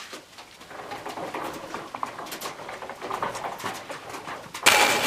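Faint scattered clicks and rustling of handling in a workshop, then, near the end, an electric drill starts abruptly and runs at a steady high whine, drilling the aluminium tail boom tube.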